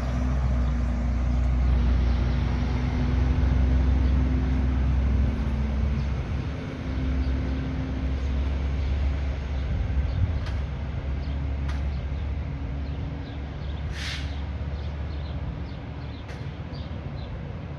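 Front-loader garbage truck's engine running with a low, steady rumble as it pulls away, growing fainter after about seven seconds. A short air-brake hiss comes about fourteen seconds in.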